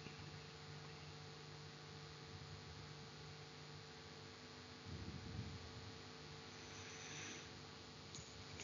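Near silence: a faint, steady electrical hum over low background hiss.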